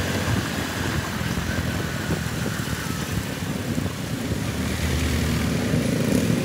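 Road traffic: a steady rumble of motorcycle and car engines and tyres on the road, with a nearby motorcycle engine rising in pitch as it revs up near the end.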